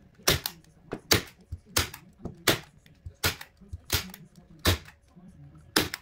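A run of sharp knocks, about one every three-quarters of a second, with fainter taps between them and a longer pause near the end.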